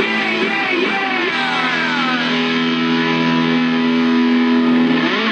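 Background rock music led by guitar: sliding, bending notes, then a long held final chord.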